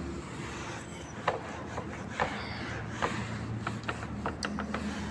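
Whiteboard duster wiping across a whiteboard in a series of short, irregular scraping strokes.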